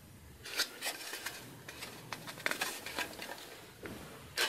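Hard plastic model-kit parts and the cardboard kit box being handled: an irregular run of light clicks, taps and rustles, with a sharper knock near the end.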